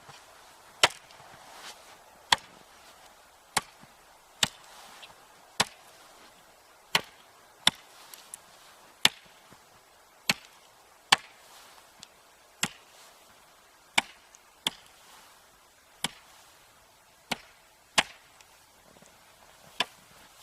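Sharp knocks repeated at a slow, fairly even pace, about one every second and a half, varying in strength.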